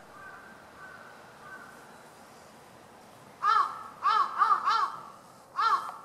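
Crow cawing: a run of loud, short caws starting a little past halfway, three of them in quick succession, then one more near the end.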